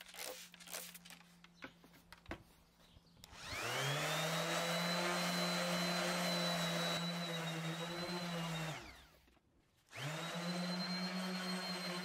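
Random orbital sander sanding a wood panel with epoxy inlays. After a few light clicks, it spins up about three seconds in and runs steadily. It winds down and stops around nine seconds in, then starts again a second later.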